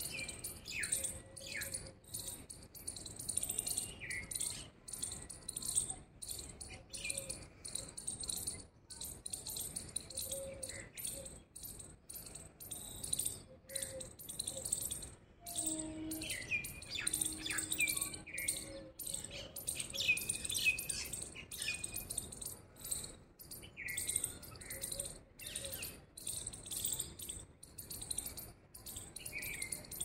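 Many small birds chirping in a dense, unbroken chatter, with clear downward-sliding calls from single birds now and then.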